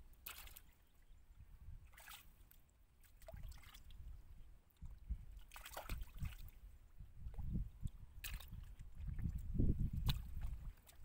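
Hands groping and splashing in shallow muddy water while feeling for fish: several short splashes and slops over a low rumble.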